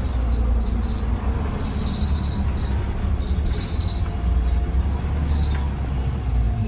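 Inside a moving 2020 Blue Bird Vision school bus: a steady low rumble of engine and road noise, with brief high-pitched squeaks coming and going.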